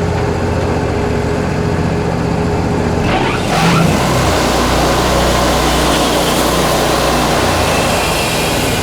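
Wood-Mizer LT40 portable band sawmill running steadily. About three seconds in, a brief rising sweep leads into a louder, fuller noise that holds: the band blade cutting into the pine log.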